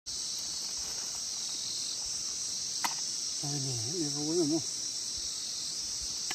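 Steady high-pitched insect chorus, with a single sharp click about three seconds in and a brief low voice about a second later.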